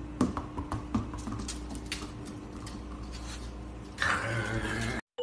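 Golden retriever puppy's claws clicking and pattering on a tile floor as it plays with a plush toy, with a louder scuffle about four seconds in.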